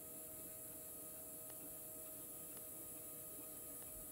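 K'nex electric motor running steadily under load as it winds the crane's pulley string, a faint steady hum with a few faint, irregular clicks.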